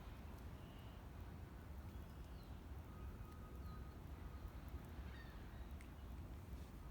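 Quiet ambience: a steady low rumble with a few faint, short bird chirps scattered through it.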